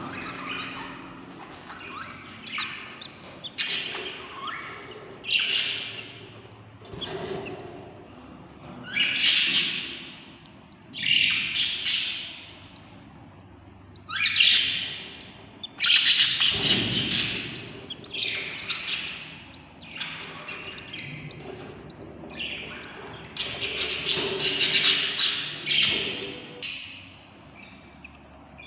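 Budgie chicks in a nest box giving raspy, hissing begging calls, one after another every couple of seconds. A single thump a little past halfway.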